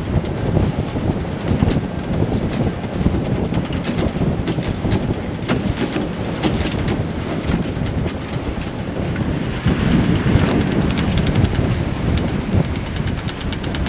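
Wind buffeting the microphone over the rush of sea water along the hulls of a catamaran under sail with its engines off. Light clicks and rattles come in clusters a few seconds in and again near the end.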